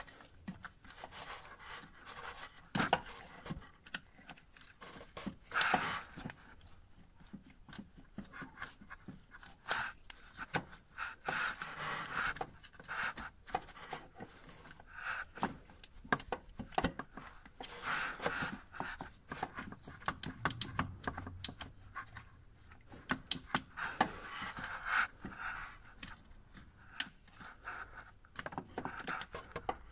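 Irregular clicks, scrapes and rubbing as gloved hands work a rubber intake hose and its metal clamp onto the intake pipe of a diesel engine, with a few louder flurries of scraping.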